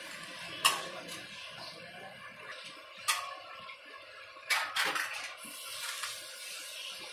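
A hand kneading and squishing milk powder into a wet paste in a large aluminium basin, with a few sharp knocks against the metal. The loudest knock comes just over half a second in, and others follow around three seconds and four and a half seconds in.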